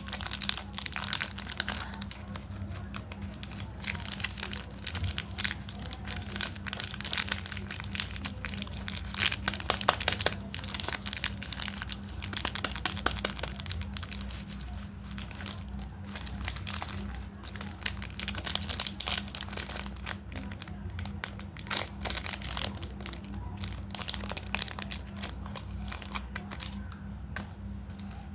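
Candy wrappers crinkling as they are handled and unwrapped, a dense run of irregular crackles that goes on without a break, over a steady low hum.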